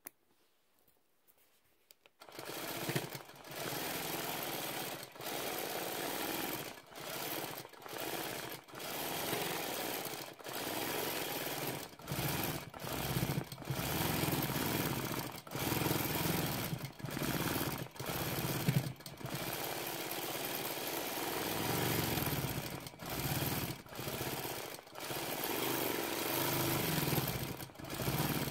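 A-1 longarm quilting machine starting up about two seconds in and stitching in short runs, stopping briefly every second or two as the quilter guides the needle through a freehand feather pattern.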